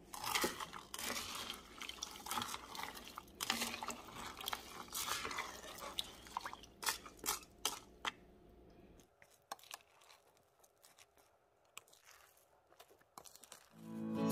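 Raisins, chestnut pieces and nuts rustling and clicking in a pot as they are handled with a sticky sauce: crackly, with many sharp clicks, dying down to a few ticks after about nine seconds. Guitar music fades in at the very end.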